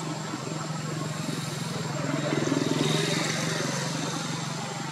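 A motor vehicle's engine running steadily, growing louder about halfway through and then easing off again.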